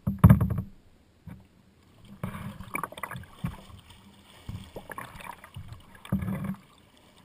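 Water splashing in several bursts as a kayaker capsizes a Wilderness Systems Tsunami 120 kayak and rolls it back upright with his paddle, the whole roll completed. A short loud bump comes about a quarter second in.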